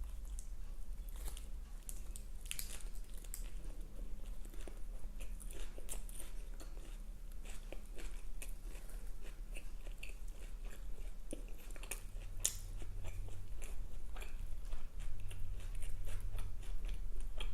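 Close-miked biting and chewing of a Burger King Whopper Jr: many short, crisp crunching clicks and wet mouth sounds. A steady low hum runs underneath.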